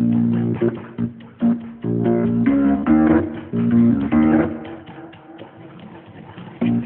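Instrumental music with no singing: pitched notes in short stop-start phrases, easing off after about four and a half seconds and picking up again near the end.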